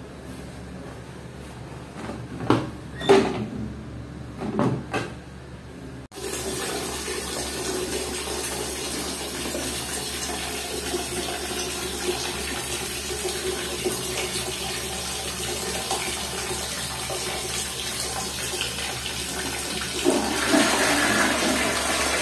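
A few sharp knocks as the plastic toilet seat and lid are handled, then water rushing steadily as a close-coupled toilet flushes. The rush starts suddenly about six seconds in and grows louder near the end.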